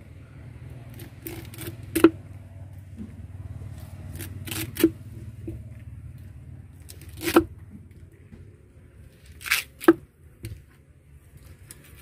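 A knife cutting and scraping through a tuna fillet on a wooden cutting board, with about eight short sharp knocks and clicks of the blade, the loudest about two seconds in and a pair near the ten-second mark. A low steady rumble sits underneath.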